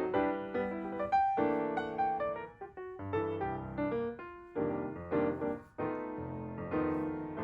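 Background piano music: a gentle melody with chords and bass notes.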